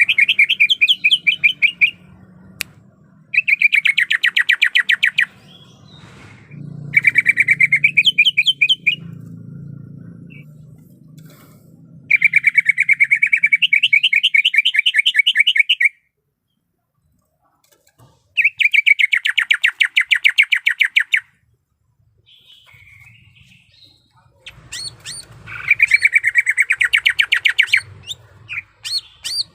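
Green leafbird (cucak ijo) singing in repeated bursts of rapid chattering trills, each run lasting a few seconds with short pauses between.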